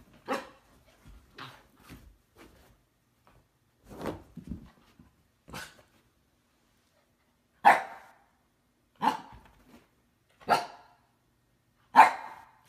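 Small puppy barking in short, sharp yaps: a few faint ones in the first half, then four loud barks about a second and a half apart.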